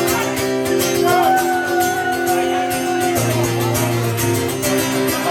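Live band music driven by guitar, with a long held note over it from about a second in until about three seconds in.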